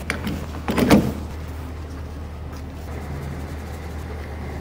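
Fuel pump nozzle clicking and clunking into a pickup's filler neck about a second in, then a steady low hum while the gas pump runs.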